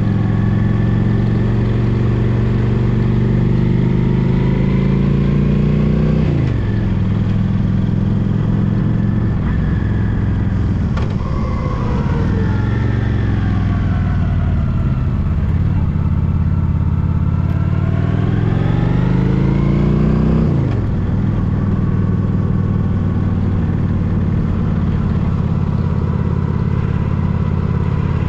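Honda Shadow Spirit 750's V-twin engine under way. The engine note climbs for several seconds and drops sharply about six seconds in. It falls away around eleven seconds and winds down, climbs again and drops sharply just after twenty seconds, then holds steady.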